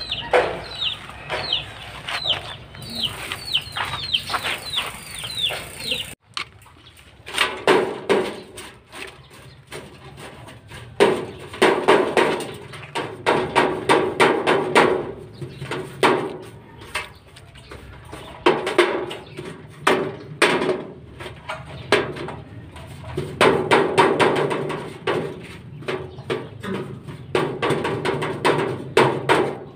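Birds calling: a run of quick, repeated falling chirps for about six seconds, then, after a sudden break, repeated bouts of calls.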